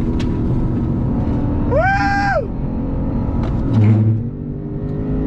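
Lexus RC F Fuji Speedway Edition's 5.0-litre naturally aspirated V8 running under load on a race track, heard from inside the cabin. A brief high tone rises and falls about two seconds in, and the engine note surges then drops off about four seconds in.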